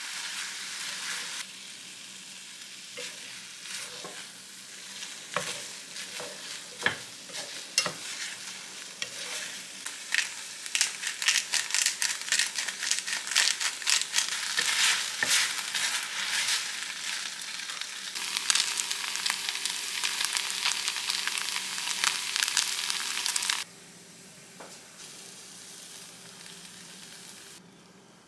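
Chicken breast, onion and soaked noodles stir-frying in sauce in a small pan, sizzling steadily while wooden chopsticks stir and tap against the pan. The sizzling cuts off suddenly about three-quarters of the way through.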